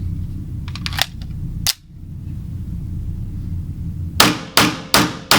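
Rapid pistol shots from a 9mm Tanfoglio Witness match pistol: four sharp reports in quick succession, about 0.4 s apart, starting about four seconds in. Two lighter sharp knocks come earlier, over a steady low rumble.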